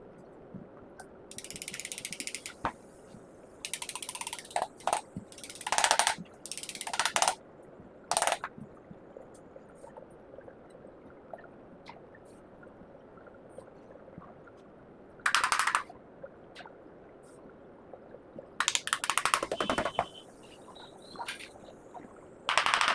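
Short bursts of rapid ratcheting clicks from hand work on a rewound water-cooler motor during reassembly, several times with quiet gaps between.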